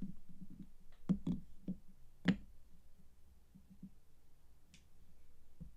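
Hands handling soap bars and their packaging: a run of soft knocks and taps, with a few sharper clicks about a second and two seconds in, then quieter scattered taps.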